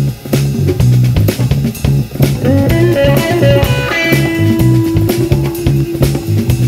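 Instrumental funk played live by a drum kit, electric bass and electric guitar. The bass repeats a short riff under a steady drum beat. About two seconds in, the electric guitar climbs in steps and then holds one long note.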